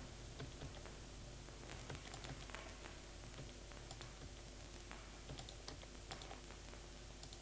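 Faint computer keyboard typing and clicking, irregular keystrokes over a low steady hum.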